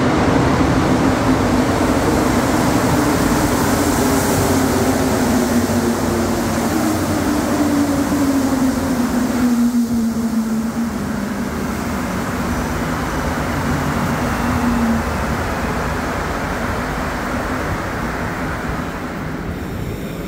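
Montreal Metro AZUR rubber-tyred train running, heard from inside the car: a steady rumble and hiss, with a motor tone that slowly falls in pitch over the first fifteen seconds or so.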